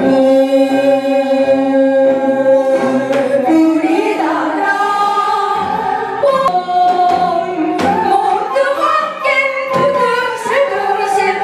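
Women's voices singing a Korean traditional song (gugak), holding long notes that bend and slide in pitch, with a few short plucked or struck accents.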